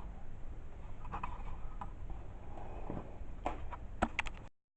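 A few scattered light clicks and knocks of objects being handled over a low background hum, with a quick cluster of clicks near the end before the sound cuts off.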